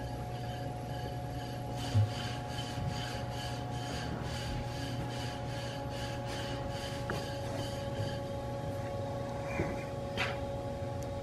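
Rhythmic rasping strokes, about three a second, over a steady workshop hum, lasting several seconds before stopping. One dull knock comes about two seconds in.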